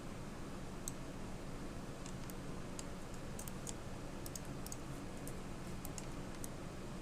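Irregular light clicks of a computer mouse and keyboard, about fifteen of them, used in quick runs while editing, over a steady low hum.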